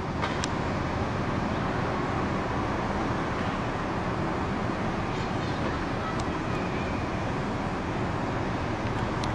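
Steady road traffic noise, an even rumble and hiss at a constant level, with a few faint clicks.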